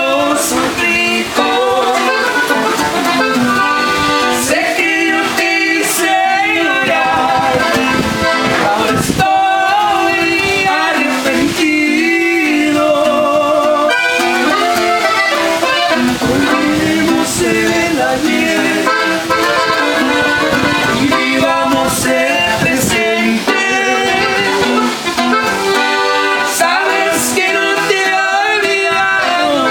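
Norteño music played live: a Gabbanelli button accordion and a twelve-string bajo sexto, with two men singing together.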